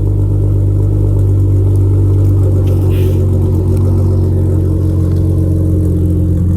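Dodge Challenger V6 with aFe catless downpipes idling steadily after a cold start, its exhaust loud and even.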